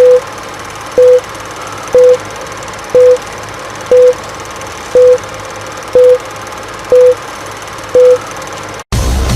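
Short, loud electronic beeps of one pitch, one a second, nine in all, over a steady hiss. Near the end the hiss cuts off and loud music starts.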